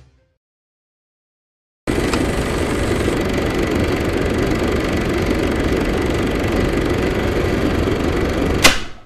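Silence, then about two seconds in a loud steady rumbling noise starts abruptly, holds even, and ends with a sharp click near the end.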